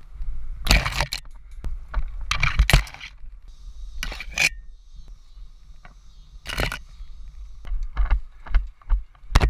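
Rustling and scraping noises close to the microphone in several short bursts over a low rumble, with a cluster of them near the end.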